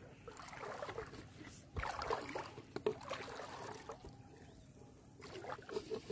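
Shallow seawater sloshing and splashing in irregular bursts around someone wading, with a couple of sharp clicks about two and three seconds in.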